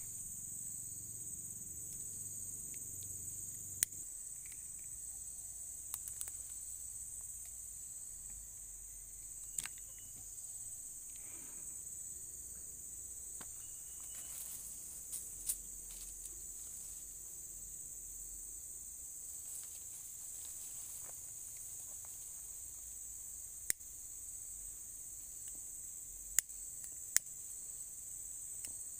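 Steady high-pitched chorus of insects, with a handful of short sharp clicks scattered through.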